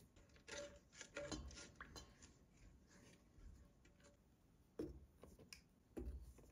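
Near silence broken by faint scattered taps and clicks, as of small objects being handled: a cluster about a second in and two sharper knocks near the end.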